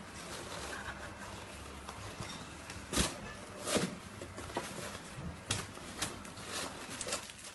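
Cats scuffling and pouncing in a cardboard box: a handful of irregular knocks and thumps against the cardboard, the loudest about three seconds in, over a steady background hiss.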